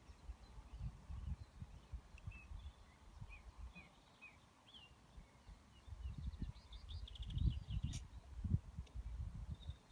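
Wind buffeting the microphone in uneven low gusts, strongest in the second half, with small birds chirping in the background and a single sharp click about eight seconds in.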